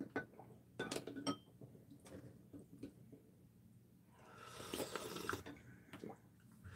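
Metal spoons clink against ceramic bowls a few times in the first second and a half. About four seconds in comes a slurp lasting about a second, as the brine of the pickled radish is drunk from its container.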